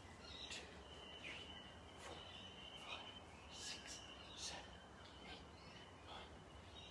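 Faint outdoor background: a thin, steady high-pitched tone with soft short ticks about once a second.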